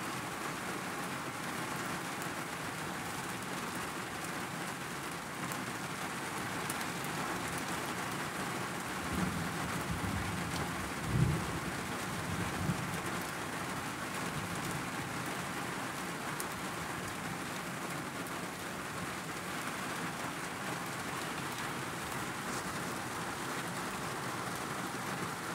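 Steady rain on a car's windshield and roof, heard from inside the car. About nine seconds in, thunder rumbles low for a few seconds and peaks sharply around eleven seconds in.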